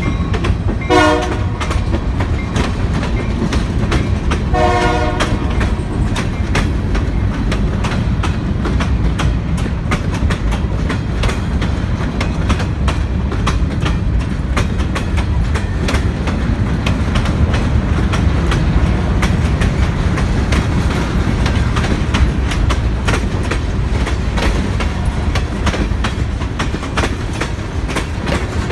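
Finger Lakes Railway diesel freight train at a street grade crossing: two short horn blasts in the first five seconds, then the steady, loud rumble of the passing train with wheels clicking over the rail joints.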